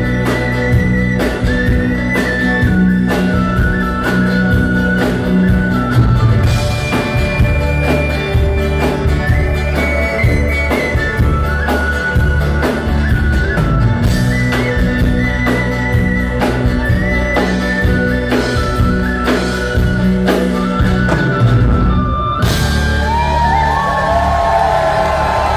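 Live rock band with electric guitars, accordion and drums playing a song with a steady beat. About 22 seconds in the music stops and the audience cheers and whistles.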